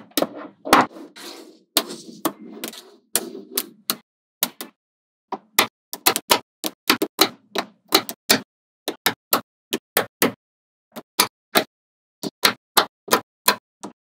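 Small magnetic balls clicking as they snap together: a quick, irregular run of sharp clicks, about two to four a second, with dead silence between them. In the first few seconds a softer noisy sound runs under the clicks.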